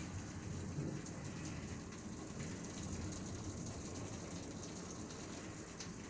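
Steady rain falling during a thunderstorm, with a low rumble underneath.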